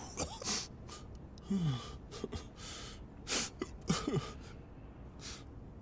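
Elderly man sobbing: several short gasping breaths and a brief falling moan.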